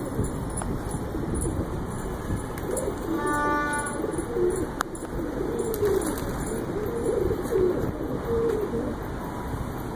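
Domestic pigeons cooing over and over, low wavering calls that begin a few seconds in and carry on until near the end. A short, steady pitched tone sounds once about three seconds in.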